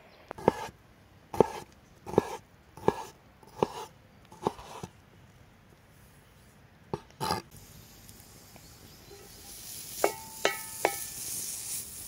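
A knife chopping on a wooden cutting board as bacon is diced, about six evenly spaced chops, then two more. Near the end, bacon cubes start sizzling in a hot cast-iron pan, a rising hiss with a few sharp ringing clinks.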